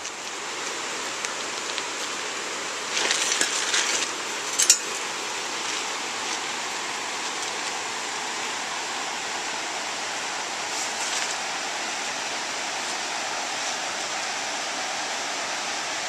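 Steady rushing of a mountain creek and waterfall. A short burst of rustling about three seconds in ends in one sharp click.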